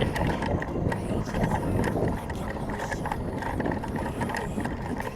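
Irregular rustling and small knocks of a player's gear while moving on foot, over a low rumble.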